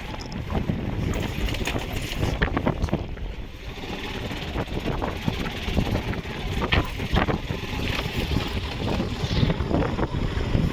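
A vehicle driving over a rough road, with its running noise cut by frequent knocks and rattles from jolting, and wind buffeting the microphone.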